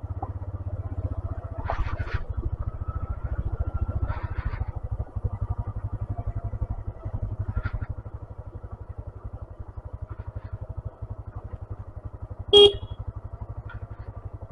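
Single-cylinder 125cc motorcycle engine running steadily under a rider on the move, with a dense low pulse throughout. A short loud beep about twelve seconds in.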